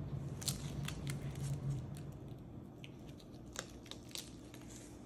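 Scattered light crackles and crunches from the toasted crust of French bread and food handling, as the top half is set on the sandwich and pressed down by a gloved hand.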